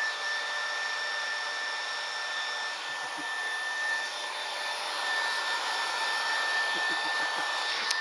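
Handheld hair dryer running steadily while drying a dog's wet coat: an even rush of air with a steady high whine. A brief click near the end.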